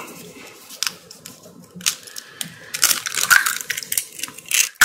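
A spoon clinking and scraping in a bowl of bibimbap while the rice is worked together, with a run of sharp clicks and crackles that gets busiest in the last two seconds.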